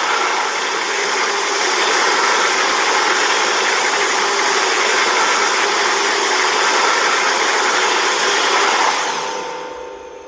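Godzilla's roar from the 2014 film, as a sound effect: one long roar held at full strength for about nine seconds, then fading away in an echoing tail near the end.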